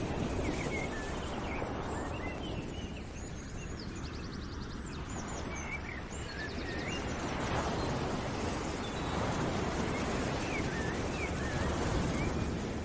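Birds chirping, with a couple of quick trills, over a rushing noise that swells and fades every few seconds: a nature ambience track.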